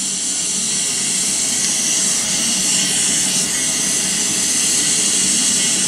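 Steady, loud hiss like escaping steam, swelling slightly as it goes.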